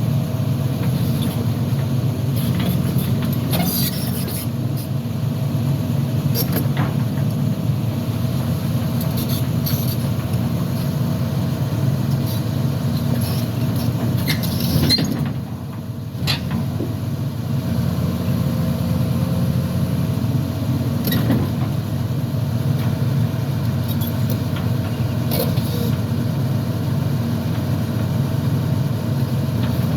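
Heavy diesel engine running steadily, dipping briefly about halfway through, with a few faint clicks.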